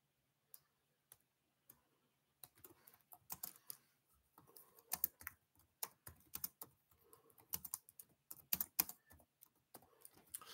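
Faint typing on a computer keyboard: irregular keystroke clicks, a few scattered ones at first, then quicker clusters from about two and a half seconds in.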